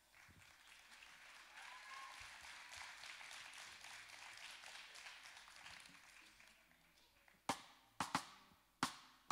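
Faint audience applause that swells and then dies away over several seconds, followed near the end by several sharp clicks spaced about half a second apart.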